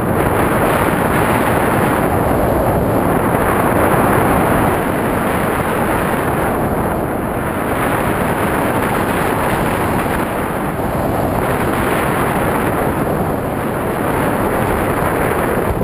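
Airflow rushing over the on-board camera's microphone during paraglider flight: a loud, steady rush of wind noise that eases slightly a few times.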